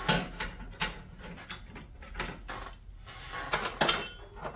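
Irregular metallic clicks and knocks of a nut driver and a steel retainer bracket being worked loose from an air handler's sheet-metal blower housing, with a few louder knocks near the end.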